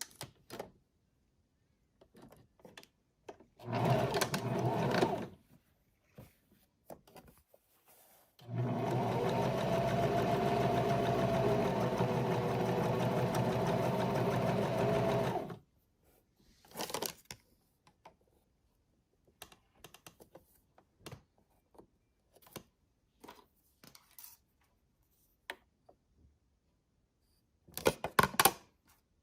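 Sewing machine stitching a seam in runs: a short run, then a longer steady run of about seven seconds, then a brief burst near the end. Small handling clicks come between the runs.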